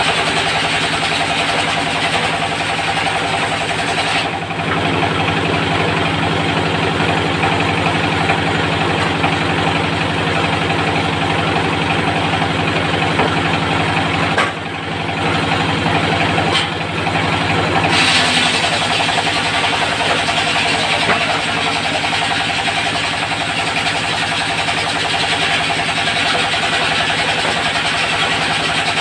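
Diesel engine of a portable circular sawmill running steadily, with the hiss of the saw blade cutting teak over the engine note. The sound dips briefly about halfway through, then carries on.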